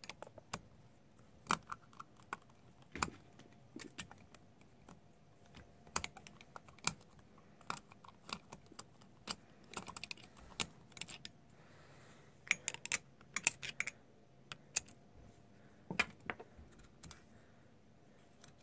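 Scattered small clicks and taps of a flathead screwdriver and fingers working a main jet out of the float bowl of an Edelbrock 1406 four-barrel carburetor. The clicks come irregularly, in small clusters.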